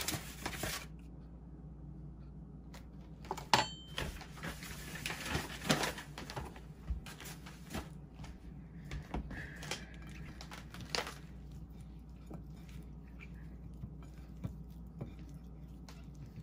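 Scattered light kitchen knocks and clatter, most of them in the first half and one near 11 seconds, over a steady low hum.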